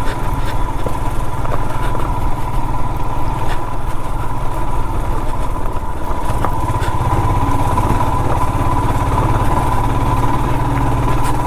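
Royal Enfield Himalayan's single-cylinder engine running steadily under load as the motorcycle climbs a rough, rocky off-road track at low speed; the engine note grows a little louder about six seconds in.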